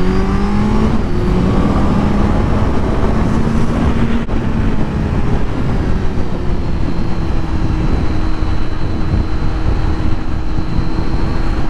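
A Kawasaki Z900's inline-four engine pulls up through the revs for the first couple of seconds, then holds a steady cruise under a heavy rush of riding wind.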